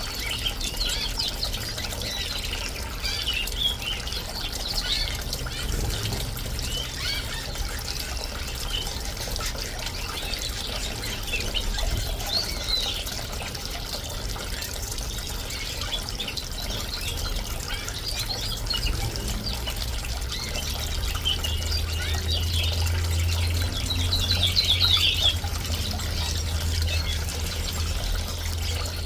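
Small fountain in a bird bath trickling steadily while canaries and finches chirp and twitter in quick short calls. A low steady hum comes up about two-thirds of the way through.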